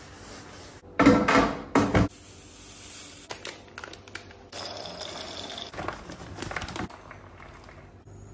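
Kitchen handling sounds: knocks and clatter of jars and containers on a countertop, with rustling and scrubbing. The loudest knocks come about one to two seconds in.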